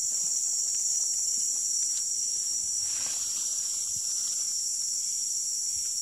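A steady, high-pitched chorus of insects calling without a break.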